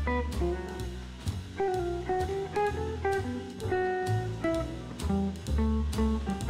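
Background music: plucked guitar over a bass line and drums, with a jazzy feel.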